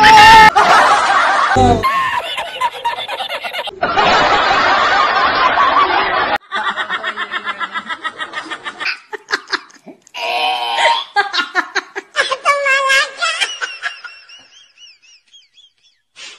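A string of edited laughter sound effects: different people laughing and snickering one after another, each clip cutting in abruptly and the last trailing off near the end.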